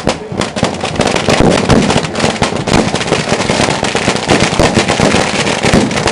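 Fireworks crackling: a dense, rapid run of small sharp bangs going off without pause.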